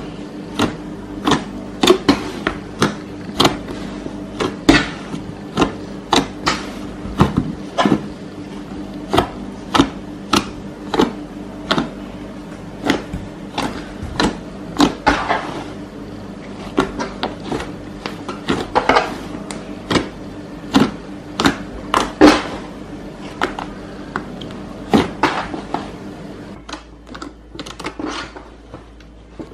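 Slime being squeezed and poked by hand, making a long run of sharp clicks and pops, roughly one to two a second, thinning out near the end.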